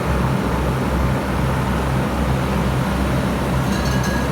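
Fan motors of an old Kirby walk-in cooler evaporator running: a steady low hum with a rush of air.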